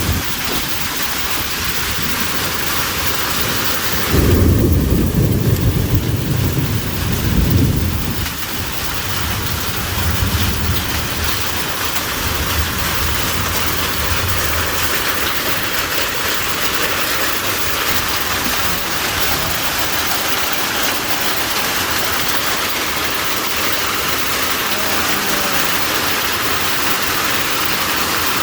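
Heavy rain and hail coming down in a steady, dense hiss. A loud low rumble of thunder comes about four seconds in and lasts a few seconds, followed by fainter rumbles.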